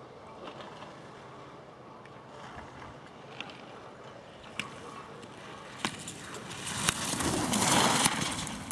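Ski edges scraping and hissing on hard-packed snow as a giant slalom skier carves past close by, building to loudest about eight seconds in and then fading. A few sharp clacks come before it.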